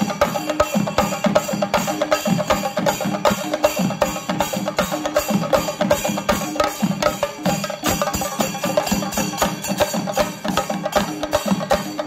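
Kerala chenda melam: a troupe of chenda drums beaten with sticks together in a fast, dense, steady rhythm, many strokes a second without a break.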